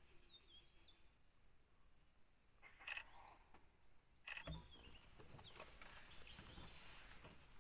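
Near silence: faint outdoor ambience, with a short gliding bird call near the start and two sharp clicks, about three and four and a half seconds in.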